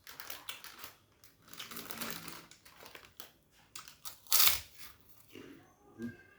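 Close-up eating sounds: chewing and handling of a nasi Padang meal, a run of small clicks and rustles, with one much louder noisy burst about four and a half seconds in.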